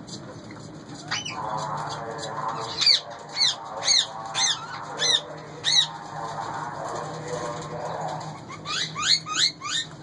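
Indian ringneck parakeets calling: a run of about six shrill screeches roughly two a second, then a quick burst of rising calls near the end, with softer, lower calls in between.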